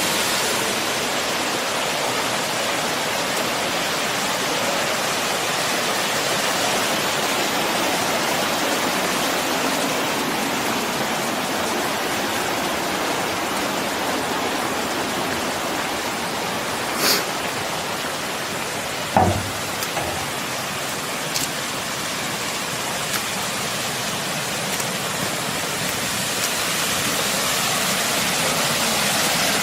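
Steady rush of flowing mountain water, with two brief knocks a little past halfway.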